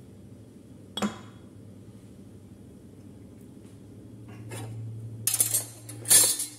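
Kitchen dishes and utensils: one sharp knock about a second in, then clinking and clattering near the end, loudest just before the end.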